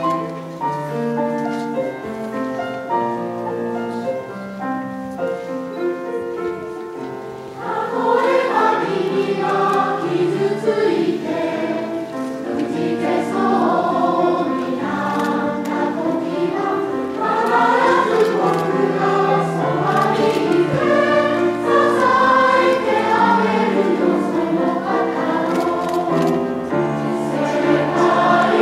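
A mixed choir of women, men and children singing with piano accompaniment. It opens softly on held notes, then the full choir comes in clearly louder about seven and a half seconds in.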